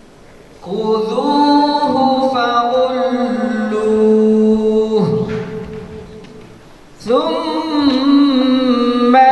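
Quranic recitation in the melodic tajwid style: a single reciter's voice chanting long, drawn-out notes with ornamented pitch turns. One long phrase begins about half a second in and fades away, and after a short pause a second phrase begins near the end.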